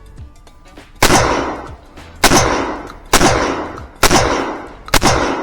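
Landor Arms LND117 semi-automatic 12-gauge shotgun firing five shots of bird shot in quick succession, about one a second, each followed by a short echo. The action cycles on every round with these game loads.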